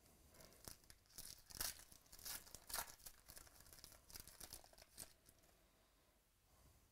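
A foil trading-card pack wrapper being torn open and crinkled in a series of short, sharp tearing and crackling bursts, which die away about five seconds in.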